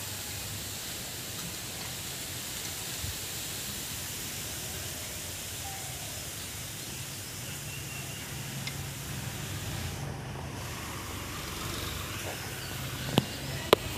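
Steady outdoor background noise, with a faint low hum from about halfway through and two sharp clicks near the end.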